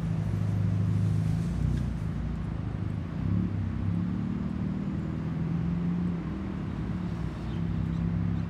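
Low rumble of an Airbus A320-232's twin IAE V2500 jet engines as the airliner flies over high up.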